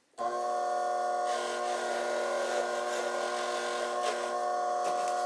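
Small hobby bench grinder's motor running steadily with an even whine, driving a cotton buffing wheel. From about a second in to about four seconds a rushing hiss rides over it, typical of a gold-filled watch case being pressed against the compound-loaded wheel.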